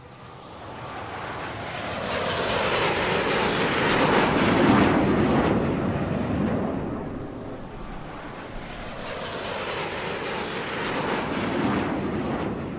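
Two fighter jet fly-bys, each swelling up to a loud rushing pass and then dropping in pitch as it goes by. The first and louder pass peaks about four to five seconds in and the second about eleven to twelve seconds in.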